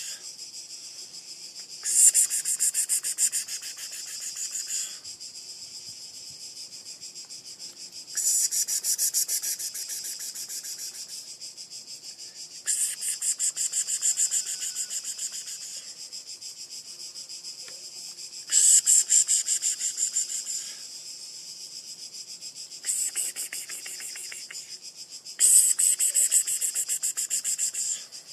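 Insects singing: a steady high-pitched buzz that swells six times into loud, fast-pulsing surges of two to three seconds each, starting abruptly.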